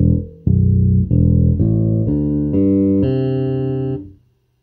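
TUNE SWV-6 six-string 33-inch-scale electric bass played fingerstyle: a run of about six plucked notes roughly half a second apart. The last note rings for about a second and a half, then stops shortly before the end.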